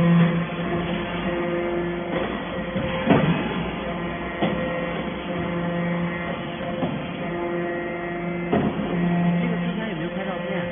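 Hydraulic metal chips baling press running: a steady motor and pump hum that swells and eases, with a few sharp metallic knocks.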